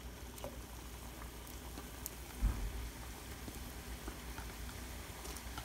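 Strips of matri dough deep-frying in hot oil in a kadhai, a steady sizzle as more pieces are dropped in one by one. There is one dull bump about two and a half seconds in.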